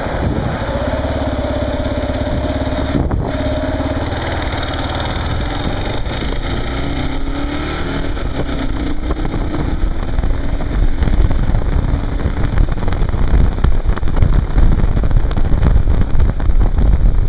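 Kawasaki KLR single-cylinder motorcycle engine running under way. There is a brief break about three seconds in, and the engine pitch rises as it accelerates around the middle. From about ten seconds on it gets louder, with low rumbling wind noise on the microphone.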